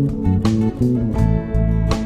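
Background music: guitar-led instrumental with a bass line and a steady beat.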